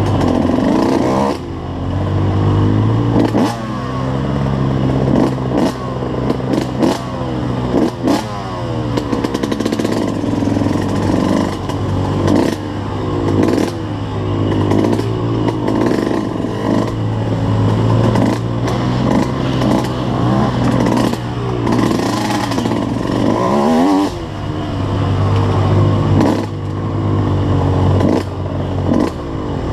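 Suzuki RM125 two-stroke single-cylinder dirt bike engine heard from the bike itself, revving up and down with the throttle at trail speed. Repeated clattering and rattling runs through it as the bike crosses rocks and ruts.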